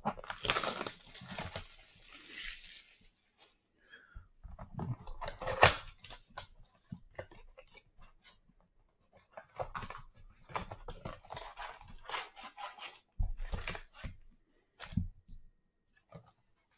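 Plastic shrink-wrap crackling as it is torn off a trading-card blaster box, followed by the cardboard box being opened and its foil card packs handled: scattered crinkles and sharp clicks with short quiet gaps.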